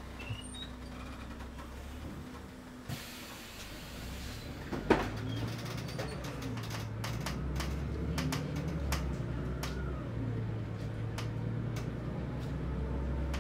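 City bus: a hiss of compressed air about three seconds in, then a loud clunk, and the engine running as the bus moves off, with small rattles and clicks in the cabin.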